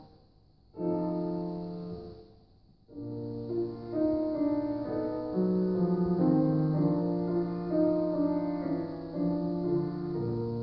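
Solo grand piano playing classical music: after a brief pause, one chord rings and fades, a second pause follows, and from about three seconds in the playing runs on with a melody over held bass notes.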